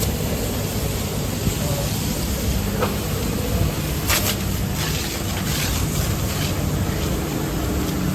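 Heavy vehicle engine running steadily under a rush of wind noise, with a few brief hissing flares.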